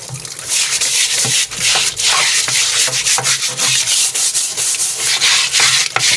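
Scrubbing: quick, repeated rubbing strokes against a surface, in a steady dense run.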